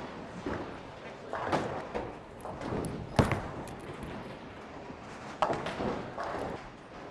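Bowling-alley noise: several sharp knocks and crashes of balls and pins over a steady background din, the loudest about three seconds in and another just past five seconds.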